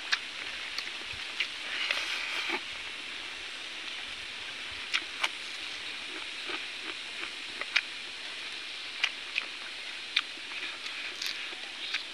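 Eating with bare hands: scattered small clicks and smacks of roasted chicken being torn apart and chewed, with a short rustle about two seconds in, over a steady background hiss.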